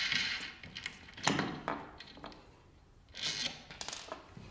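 A few light clicks and knocks with some rustling as a knob and washer are unscrewed and handled at the end of a wooden easel's swing arm, with a short lull in the middle.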